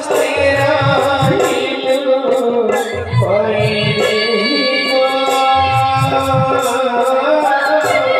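Live stage-play song: a singer with a strongly wavering voice, backed by a drum playing in short phrases and regular light, high strokes that keep the beat.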